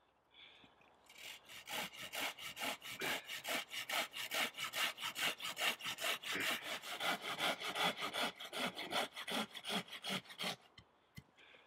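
Orange-handled hand saw cutting through a bark-covered wooden stake in quick, even back-and-forth strokes, about four a second. The strokes start about a second in and stop near the end.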